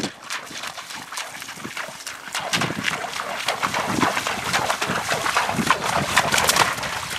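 A Thoroughbred horse's hooves splashing through shallow water at a walk, an irregular run of splashes that gets busier about a third of the way in.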